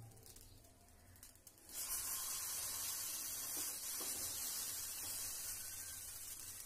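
Wheat-flour batter and oil sizzling on a hot dosa tawa as battered susiyam balls cook: a steady hiss that starts suddenly about two seconds in.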